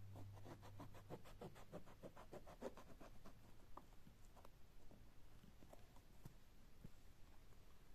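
Kitchen knife peeling strips of skin from an eggplant: a quick, faint run of scraping cuts, about six a second, for the first three seconds, then a few separate scrapes and taps.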